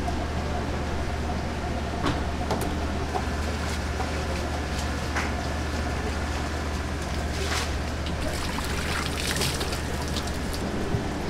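Steady low hum and background noise of a fish market, with scattered light clicks and taps, more of them in the second half, as a wet mullet fillet is handled on a plastic tray.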